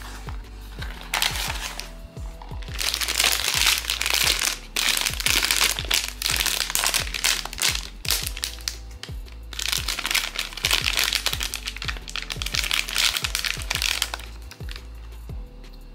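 Crinkling and crackling of a blind-box figure's plastic packaging being handled and torn open, in two long stretches, about three to eight seconds in and again about ten to fourteen seconds in. Background music plays underneath.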